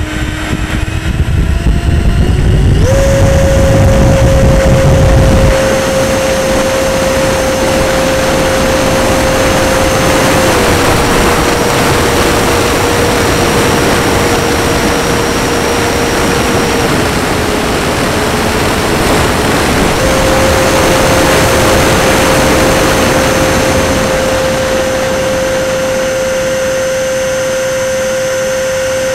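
Electric ducted-fan motor of an RC model Mirage 2000 jet, run on a 6S battery and heard from a camera on board: a steady high whine that climbs in pitch over the first few seconds as it spools up. It steps down twice and back up as the throttle changes, over steady wind rush. A low rumble from the ground roll stops about five seconds in as the model lifts off.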